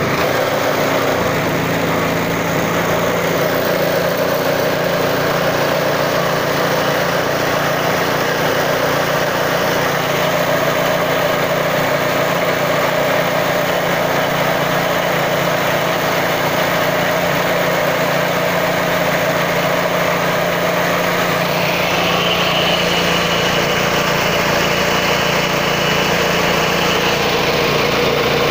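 Corn grinding mill running steadily and loudly while grinding dried corn kernels into meal. About three-quarters of the way through, a higher whine joins in and the low rumble grows.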